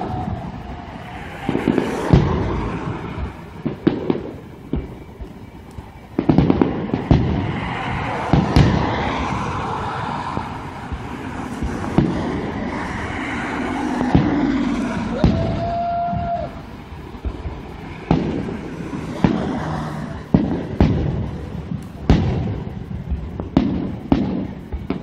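Aerial fireworks shells bursting, with sharp booms at irregular intervals, a dozen or more, and a lingering rumble between them. A single steady held tone sounds for about a second and a half just past the middle.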